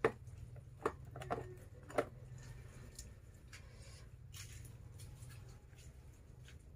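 Plastic food containers knocking and clicking against each other and the refrigerator shelf as they are pushed into place, four short knocks in the first two seconds. A faint steady low hum underneath.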